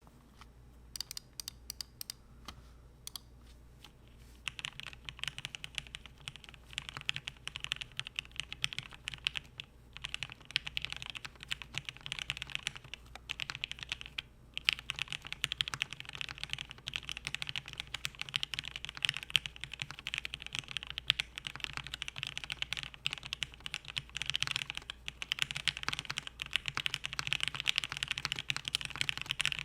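Cannon Keys Savage65 custom mechanical keyboard with an FR4 half plate, lubed H1 linear switches and PBT keycaps being typed on. A few single key presses, then continuous fast typing from about four seconds in, pausing briefly twice.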